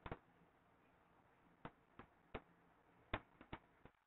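Near silence broken by about ten faint, sharp clicks at irregular intervals, a few of them close together.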